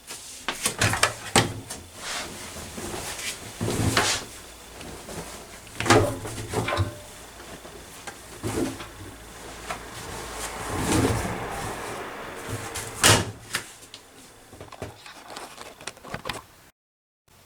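Privileg Compakt 92 washing machine giving a series of irregular knocks and clunks, some with a low hum under them. It cuts off abruptly near the end.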